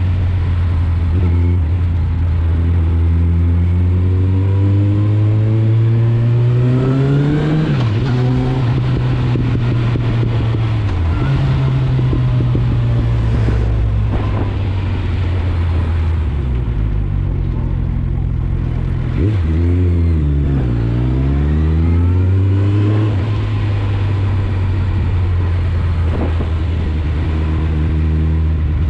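Suzuki GSF 650 Bandit's inline-four engine running through an Akrapovic exhaust while riding, its pitch climbing as it accelerates and dropping sharply at gear changes, about a third of the way in and again shortly after. Around two-thirds of the way in, the revs fall away and then climb again before settling.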